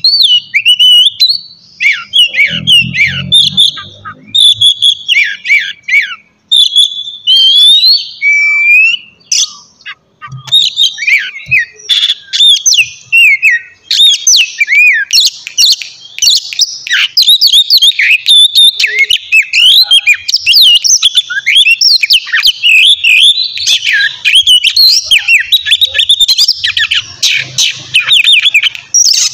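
Oriental magpie-robin (kacer) singing loudly: a fast, varied run of whistles and chirps with little pause, growing denser and more continuous in the second half.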